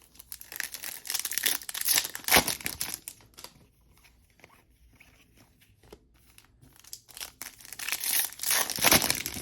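Trading card pack wrapper being torn open and crinkled in two spells of crackling, the first starting just after the start and the second near the end.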